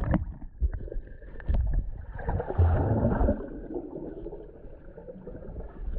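Water heard through a GoPro held below the surface: a muffled low rumble with bubbling and knocks as a swimmer kicks past, busiest about two to three seconds in.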